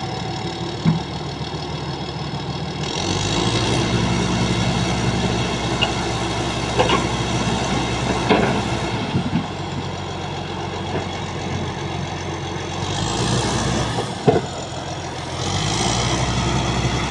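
Komatsu bulldozer's diesel engine running under load, revving up about three seconds in and again near the end as it backs up onto a lowbed truck, with a few sharp metallic clanks in between.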